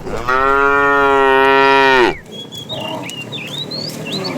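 A cow mooing once: a long, steady call of about two seconds that drops in pitch as it ends.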